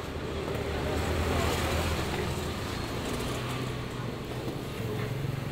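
Road traffic going past, a low, steady noise that swells about a second or two in and then eases.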